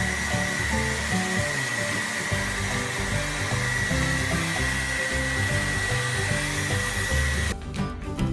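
Handheld hair dryer blowing steadily, a rushing hiss with a thin high whine, aimed at a wet puppy; it cuts off abruptly near the end.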